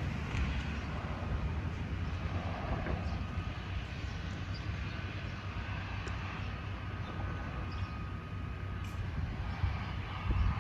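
Jet airliner engines rumbling steadily on approach to the runway, with a faint steady whine above the rumble.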